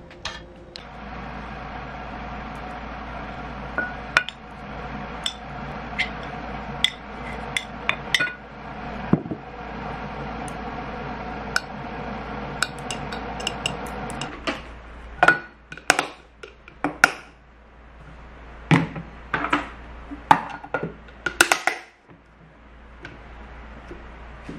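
A metal spoon clinking and scraping against glass food containers as rice is scooped in, then a run of louder knocks and clicks as the glass containers are handled and their plastic clip lids are put on. A steady hum lies under the first half.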